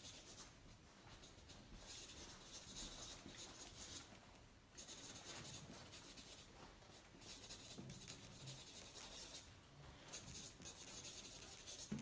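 Marker and pen writing on paper: faint scratchy strokes in bursts of about a second, with short pauses between.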